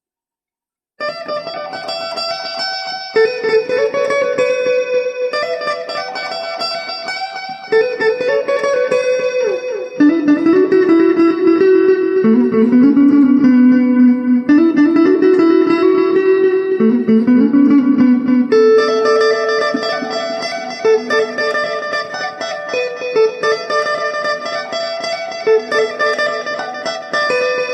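Electric guitar played through a Zoom G3X multi-effects pedal patch set up for a chicha (Peruvian cumbia) lead tone: a continuous single-note melody. It starts about a second in.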